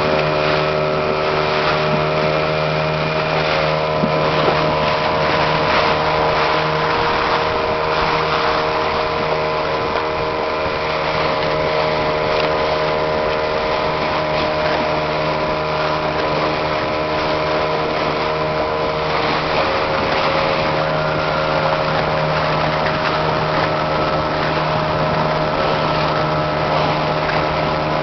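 A small wooden boat's motor runs steadily under way, with water rushing and splashing against the hull as it crosses rough current.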